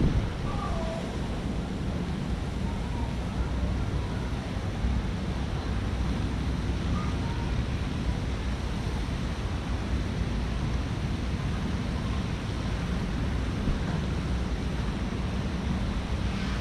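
Steady low rushing outdoor noise, with a few faint short chirps in the first second.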